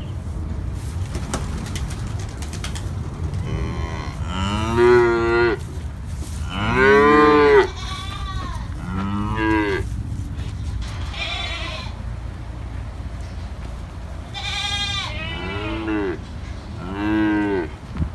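Holstein calves mooing: a series of short moos, each rising and falling in pitch, the loudest about seven seconds in, over a steady low rumble.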